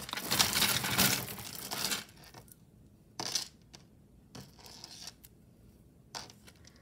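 Jewelry being handled: beads and metal pieces rattle and clink together for about two seconds, then a few separate light clicks.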